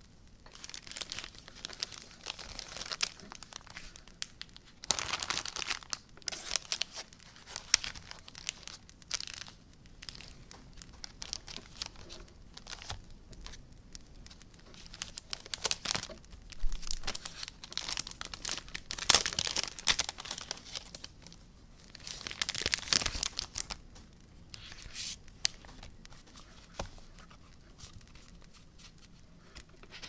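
Hands tearing open and crinkling packaging in repeated bursts, with occasional small clicks.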